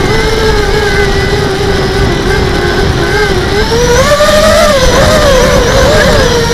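HK 250 mini FPV racing quad's four brushless motors and propellers whining, the pitch wavering with throttle changes and climbing about four seconds in, over a low rushing noise.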